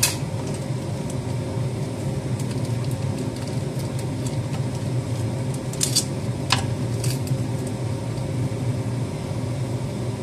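A steady low hum runs throughout, with a few short sharp clicks and taps as crab sticks and a kitchen knife are handled on a wooden cutting board: one near the start and a small cluster about six to seven seconds in.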